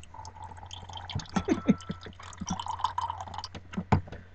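Wine being poured into a glass: quiet trickling and drips with small clicks and a few short gurgles.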